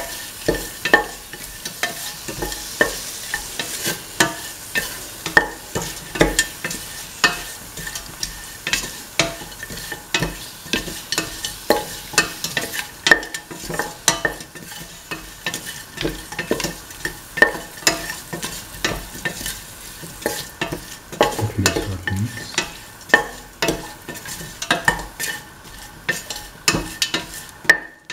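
Duck pieces sautéing in oil with shallots and fennel seeds in a metal pan, sizzling, while a spatula stirs them with repeated scrapes and knocks against the pan, about one or two a second.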